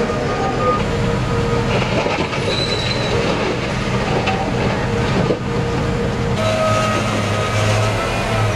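Steel crawler tracks of a bulldozer squealing and clanking under an engine's steady rumble. The squeal wavers in pitch and changes abruptly about six seconds in.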